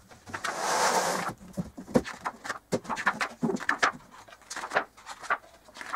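A hardboard back panel being handled and laid onto a white particleboard IKEA Hemnes bed frame part. There is a scraping, rustling noise about a second in, then a series of light knocks and taps as the panel settles against the frame.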